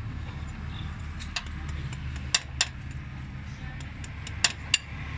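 Hand tools clinking against metal engine parts during timing-belt fitting: about six sharp metallic clicks, mostly in pairs, over a steady low hum.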